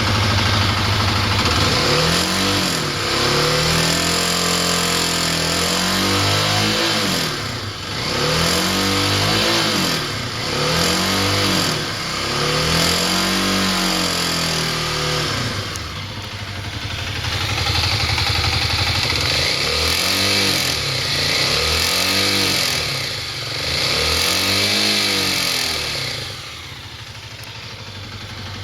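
Kawasaki KLX250S single-cylinder four-stroke engine idling and being revved up and down many times, some short blips and some held revs, dropping back to idle near the end. It carries the abnormal noise of a failing automatic cam chain tensioner.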